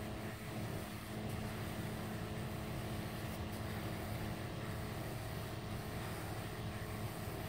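Steady hum of a motor-driven pump running, the kind that feeds stain through a hose to a spray wand.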